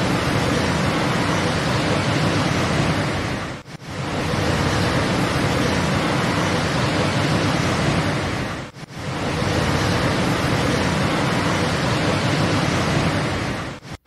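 Niagara Falls' plunging water making a loud, steady rushing noise that briefly drops away twice.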